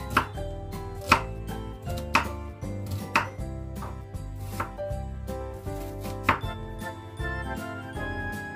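Kitchen knife slicing a red onion on a wooden cutting board, one sharp chop against the board about once a second, over steady background music.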